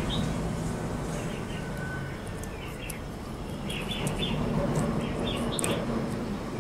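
Small birds chirping in repeated short bursts, over the low scraping of a knife being worked through the hard rind of a whole green-skinned pumpkin, with a sharp click near the end.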